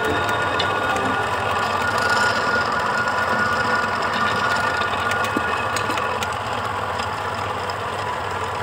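A machine running steadily, with faint scattered clicks.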